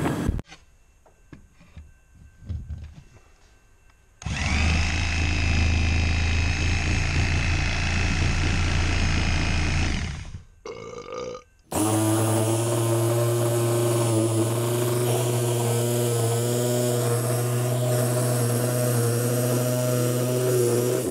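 Power tool running steadily in edited clips: a few quiet seconds with light knocks, then about six seconds of steady running with a low hum, a short break, and a second long steady run to the end.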